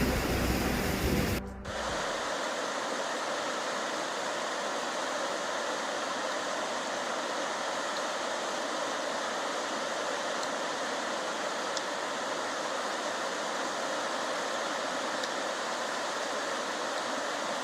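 Waterfall's steady rush of falling water, an even hiss with little low rumble. For about the first two seconds it is louder with a deep rumble, changing abruptly.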